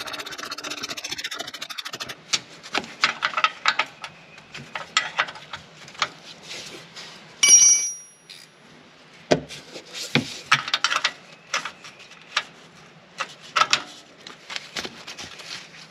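Ratcheting wrench being worked on a 12 mm nut of a front sway bar link: a fast, even run of ratchet clicks for about the first two seconds, then irregular clicks and scrapes of steel tool against the link and its bolt. About seven and a half seconds in, one sharp metal clang rings briefly, the loudest sound, followed by a couple of dull knocks.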